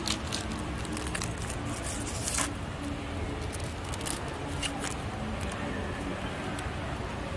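Foil wrapper of a Chronicles football card pack being torn open and crinkled by hand, with scattered sharp crackles, the loudest about two and a half seconds in, over a steady low background rumble.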